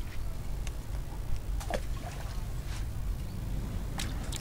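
Steady low rumble of wind buffeting the microphone, with scattered brief ticks and a couple of short, sharper noisy sounds near the end.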